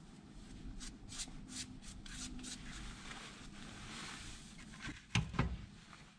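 A gloved hand and a metal tool rubbing and pressing along a soccer boot's rubber sole: a run of short scraping strokes, then a softer rustle. Two loud knocks near the end.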